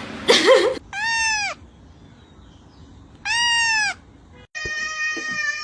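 Domestic cat meowing: two separate meows about two seconds apart, each rising then falling in pitch. A longer, steady drawn-out cry begins about a second before the end.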